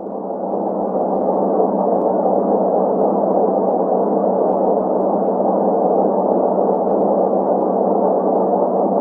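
Steady rushing noise held in a middle band of pitch, with no distinct tones, swelling up during the first second and then holding level: a sonified space recording presented as the sound of a celestial object.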